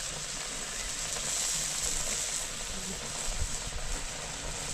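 Curry sizzling in a black wok over a wood fire, a steady hiss, with a few low knocks about three and a half seconds in.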